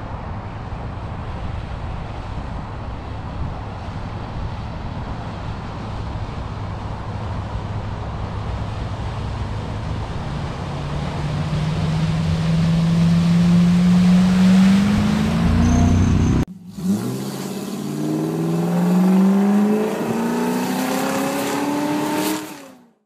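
Land Rover 4x4 driving through deep floodwater: a steady engine and water rumble, then the engine note rises as it accelerates from about ten seconds in. After a sudden cut, an engine revs up in several quick rising sweeps and fades out near the end.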